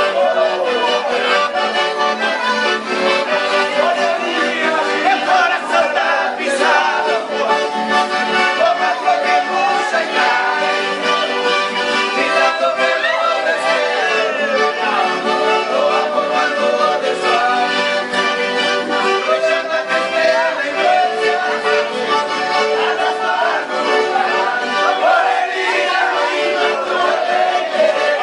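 Accordion (sanfona) playing a dance tune, a continuous melodic line with full chords.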